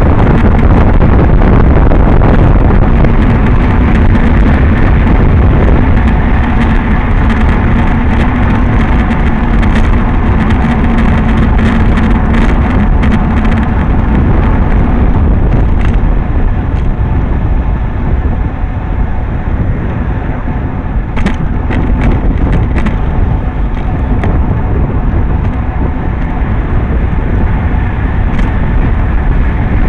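Heavy wind buffeting on the microphone of a camera riding along on a road bicycle, with tyre and road rumble; a car goes by about halfway through.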